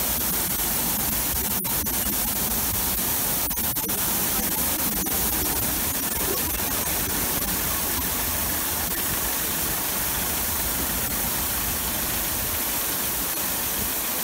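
Water jets of a drive-through wheel wash spraying against an SUV's wheels and underbody as it rolls through: a steady, even hiss.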